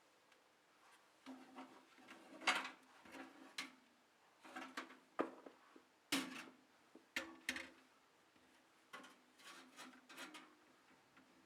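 Irregular light clicks and knocks of hard computer parts being handled, as a graphics card is being fitted, with a faint low steady hum that starts about a second in.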